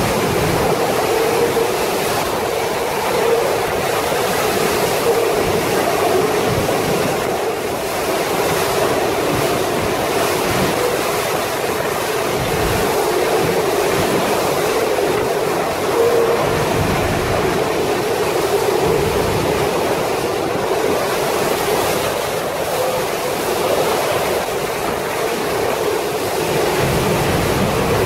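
Violent storm wind and driving heavy rain: a loud, steady rush that swells and eases a little but never breaks.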